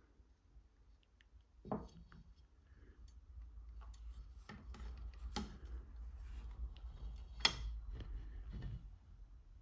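Handling noise from an opened Nixie clock's metal chassis and wiring being turned over in the hands: scattered small clicks, taps and rubbing, with the sharpest click about three-quarters of the way through.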